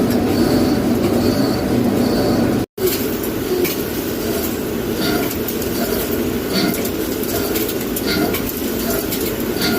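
Steady, loud mechanical noise with short high-pitched tones repeating on top. It cuts to silence for a moment about three seconds in, then resumes with irregular clicks and high tones.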